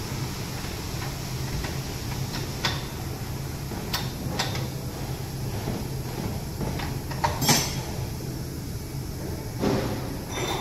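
Scattered metallic clicks and clinks as a CNC tool holder and wrench are handled in a bench tool-tightening fixture, the loudest about seven and a half seconds in, over a steady low machine hum.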